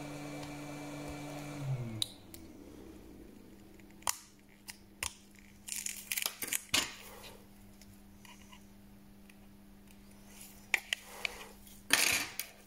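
A small motor hums steadily, then stops about two seconds in, its pitch falling as it winds down. After that come scattered sharp clicks and short scrapes of small hand tools working on a smartphone.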